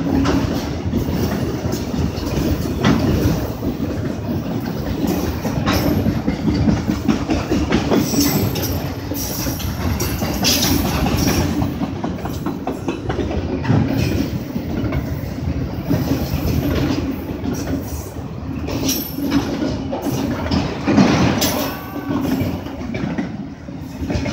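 Freight train of autorack cars rolling past close by: a steady rumble of steel wheels on rail, broken by repeated sharp clicks.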